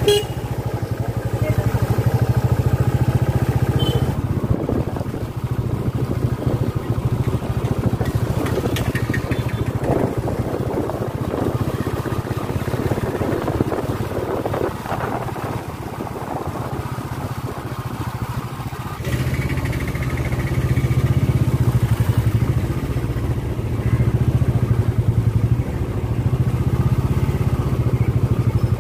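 A vehicle engine running steadily, quieter and rougher through the middle stretch, then stronger again for the last part.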